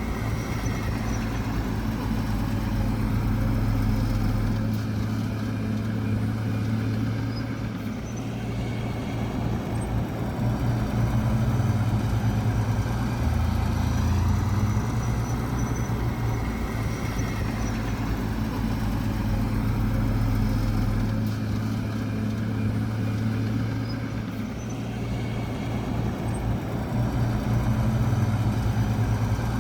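Diesel engine of heavy earthmoving equipment running steadily, its low note shifting about every eight seconds.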